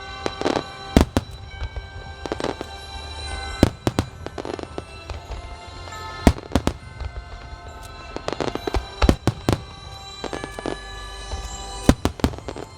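Fireworks bursting, sharp booming bangs at irregular intervals of about a second, with a rapid cluster of them past the middle, over music playing through loudspeakers with steady held notes.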